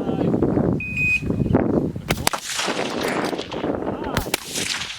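Two rifle shots, one a little over two seconds in and another about two seconds later, over strong wind buffeting the microphone.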